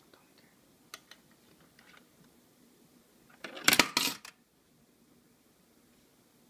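A coin fed into the coin acceptor of a Wi-Fi vending machine: a few light clicks as it is pushed into the slot, then about three and a half seconds in a loud metallic clatter lasting under a second as the coin drops through the mechanism.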